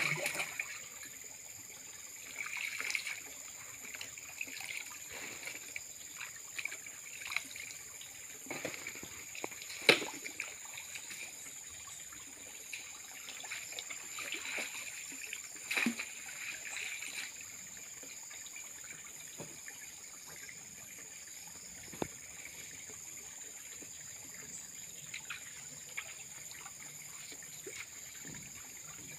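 Muddy pond water sloshing and splashing as a person wades waist-deep and works two hand nets through it. Scattered splashes come and go, the sharpest about ten seconds in and again around sixteen seconds, over a steady high-pitched tone.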